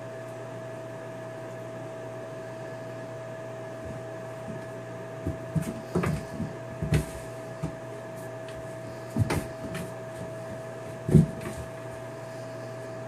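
A kitten's paws and body knocking and scuffling against a bathtub as it spins after its tail: a scatter of short dull thumps starting about five seconds in, the loudest near the end. A steady hum runs underneath.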